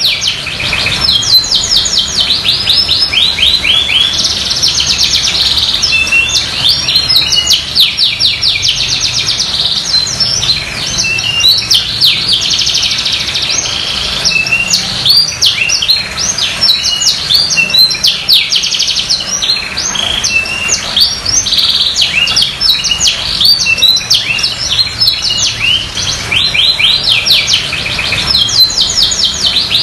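Domestic canary in full song: long, fast trills of rapidly repeated high notes, phrase after phrase with only brief breaks.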